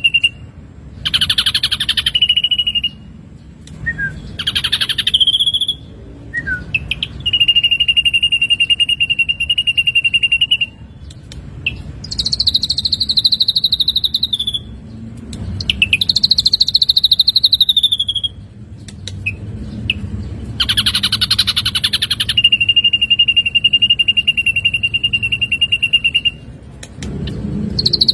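Ashy drongo song, repeated phrase after phrase. Long level high notes held two to three seconds alternate with harsh buzzy bursts and ringing notes that fall slightly in pitch.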